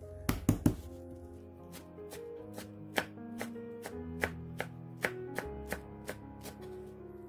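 Chef's knife chopping dallae (Korean wild chive) bulbs and roots finely on a wooden cutting board, a steady run of sharp chops about two to three a second, over soft background music. In the first second, three heavier thuds as the bulbs are pounded with the knife handle.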